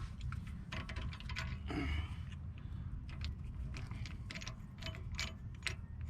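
Irregular metal clicks, light knocks and a brief scrape as a brake caliper piston wind-back tool and the caliper hardware are handled and turned by hand, over a steady low rumble.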